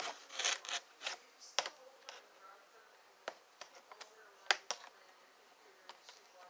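Packaging being handled and opened: scattered sharp clicks and taps with short bursts of crinkling, busiest in the first two seconds.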